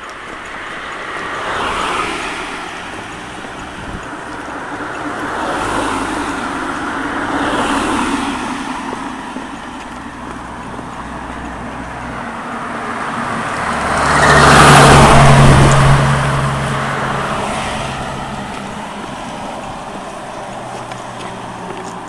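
Cars passing close by one after another, each a swell of tyre and engine noise that rises and fades. The loudest pass comes about two-thirds of the way through, with a low engine hum under the tyre noise.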